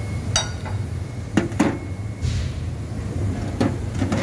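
A steady low machine hum with several short knocks over it, the first ringing briefly like struck steel.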